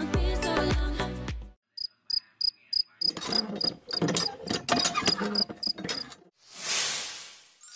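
Rapid, evenly spaced chirping clicks with a high tone, about five a second, over irregular handling noise. A hiss swells and fades near the end.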